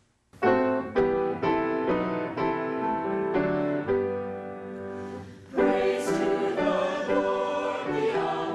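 A group of singers singing a lively hymn in chords with piano accompaniment, in an even tempo. About two-thirds of the way through there is a brief dip, and then the singing comes back in louder.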